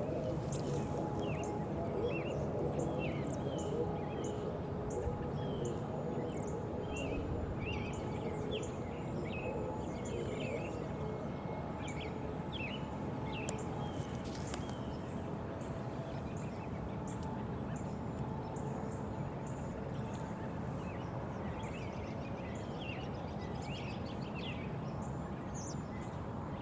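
Small birds chirping and twittering in many short calls over a steady low background noise.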